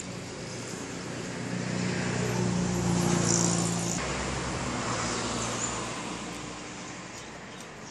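A motor vehicle passing by on the road. The engine and tyre noise swells, is loudest about three seconds in, then fades away.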